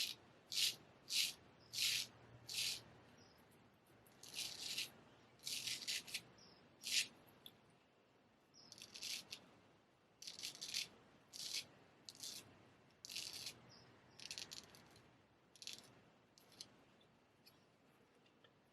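Straight razor scraping through stubble: about twenty short strokes in quick groups, thinning out and getting fainter toward the end.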